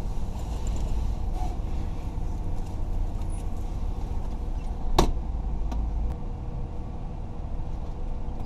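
A car engine idling, a steady low rumble heard from inside the cabin, with one sharp click about five seconds in.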